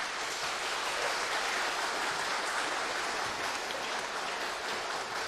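Audience applauding: a steady, dense wash of many hands clapping.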